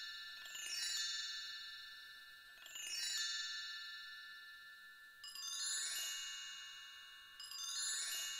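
Soft shimmering chime cascades, each running down from very high notes to lower ones and then ringing out. A new cascade starts about every two to two and a half seconds, four times.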